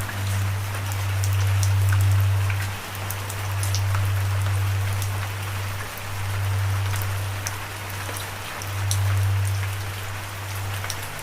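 Steady rain with individual drops pattering and clicking. Under it runs a loud low droning tone that swells and breaks off about every three seconds.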